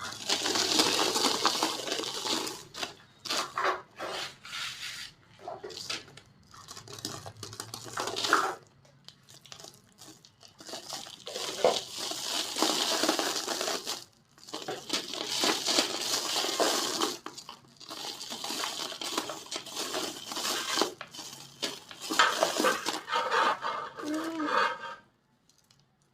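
Small dry, set white cement bowls being crushed and crumbled, giving runs of crisp crunching and crackling with short pauses between.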